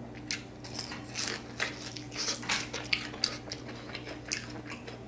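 Crisp crunching and crackling of a cornstarch-coated deep-fried pork spare rib being chewed and torn apart by hand. It comes as many short, irregular sharp crunches.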